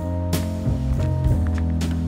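Background music with held low notes and a few sharp percussive hits.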